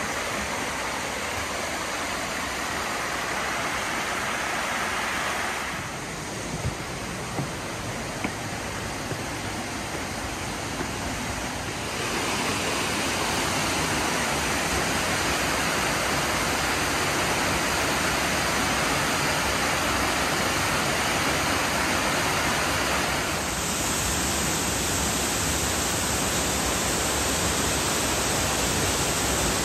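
Steady rush of a mountain stream and waterfall. The water noise changes abruptly in level and tone three times, about 6, 12 and 23 seconds in, and a few faint ticks sound between about 6 and 11 seconds.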